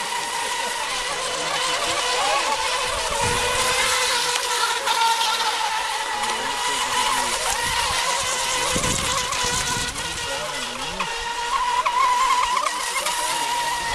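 Radio-controlled mono-hull racing boats running laps: a steady high-pitched motor whine over a hiss.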